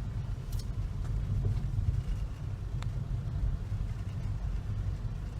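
Steady low rumble, with a faint sharp tick about halfway through.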